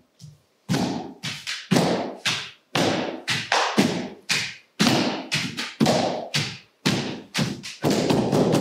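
A steady run of sharp percussive thumps, about three a second, each with a short ringing tail.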